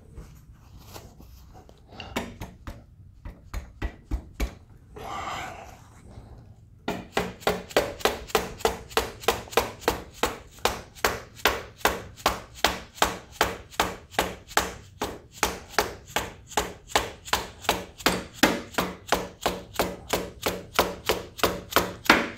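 Hammer tapping steadily, about three blows a second from about seven seconds in, driving an A-arm pivot bolt through its mount on a Yamaha Raptor 700R ATV. Before that come a few scattered light knocks of tools and parts and a brief scrape.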